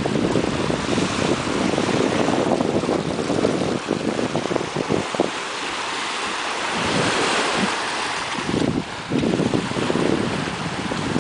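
Small sea waves lapping and washing up the beach, with wind buffeting the microphone; the buffeting eases for a couple of seconds near the middle.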